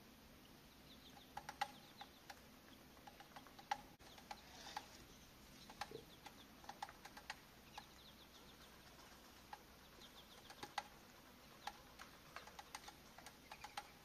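Faint high twittering of small songbirds in short runs, with sharp ticks or chips scattered at irregular intervals.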